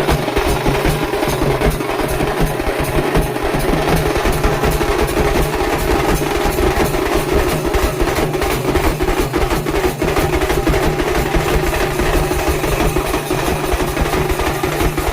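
Festive percussion music: fast, steady drumming over a continuous low hum.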